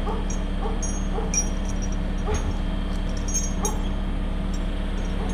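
A crane's engine running steadily, with short high squeaks repeating faintly over it.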